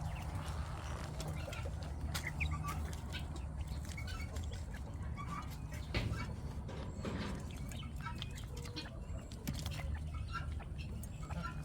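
Quails giving short soft calls and clucks, with scattered scratching clicks over a steady low rumble.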